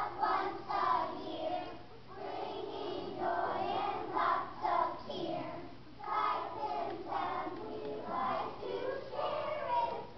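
A group of first-grade children singing together as a choir, in short phrases.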